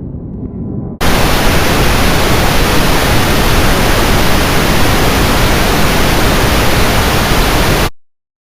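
Loud, even static hiss that cuts in abruptly about a second in and stops dead near the end, after a low rumble in the first second.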